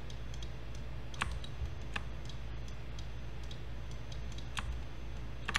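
A handful of separate, sharp clicks of a computer mouse and keyboard as vertices are picked and snapped in a 3D modelling program, over a steady low hum.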